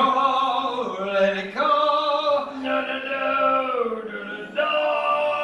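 Male singing in long held notes, choir-like, in about four phrases of a second or so each.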